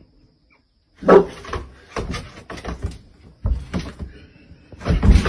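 A single loud animal call about a second in, followed by a scatter of sharp knocks and thumps.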